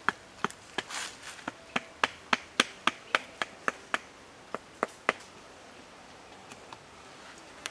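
A bamboo stick knocking a green wooden stake into the ground: a run of sharp wooden knocks, about three a second, stopping about five seconds in.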